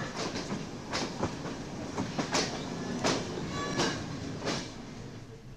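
Passenger train coaches running, heard from an open carriage window: a steady rumble of the running gear with sharp clacks of the wheels over rail joints, about one every 0.7 s, fading a little toward the end.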